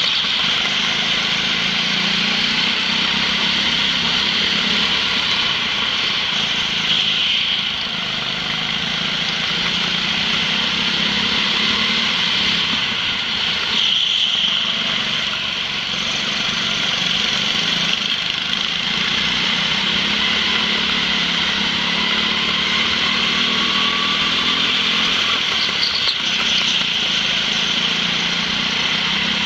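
Go-kart engines running hard at racing speed, heard from a camera mounted on a kart, a steady high-pitched drone with small dips in level twice along the way.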